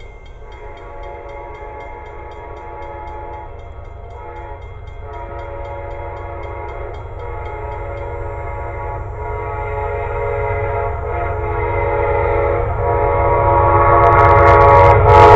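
Amtrak passenger train's locomotive air horn blowing a chord in a series of blasts with short breaks, getting steadily louder as the train approaches. In the last second or so, the rushing noise of the locomotive and cars arriving close by joins the horn.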